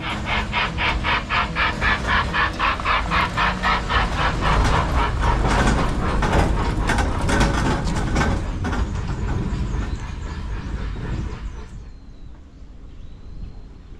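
A passing train's wheels clattering over the rails in an even rhythm, about four clacks a second, fading away after about nine seconds.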